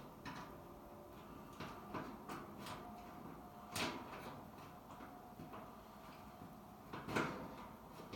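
Scattered small clicks and knocks of hard parts being handled and pressed together as a dryer drum bearing and its ball bearing are worked back into the bearing housing, with two louder knocks about four and seven seconds in.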